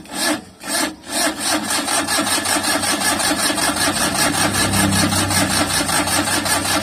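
Suzuki K6A three-cylinder engine cranking on its starter motor, a fast, even, rasping chug that starts in earnest about a second in and never catches. It is a no-start: the fuel pump is delivering no petrol to the injectors.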